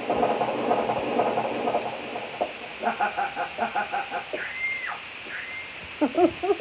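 Yamaha PSR-EW310 keyboard playing its built-in animal-like sound effects through its speakers. A dense chattering texture gives way about three seconds in to a quick string of short pitched pulses. Two high whistle-like glides follow, then bending calls near the end.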